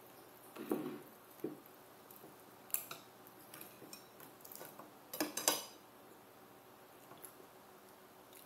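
Chopsticks and utensils clinking and scraping against ceramic plates and a bowl while someone eats: a few scattered, fairly quiet clinks, with a short clatter about five seconds in as the loudest.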